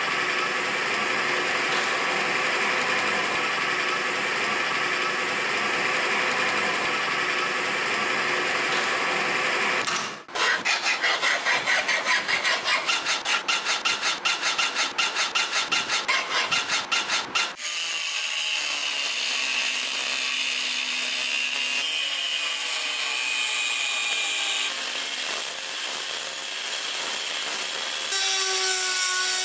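Power tools working spring steel: a drill press drilling through the steel for about ten seconds, then a fast rhythmic scraping of about five strokes a second, then a steady power-tool grinding whose pitch shifts under load. Near the end an angle grinder's cut-off wheel cuts into the steel.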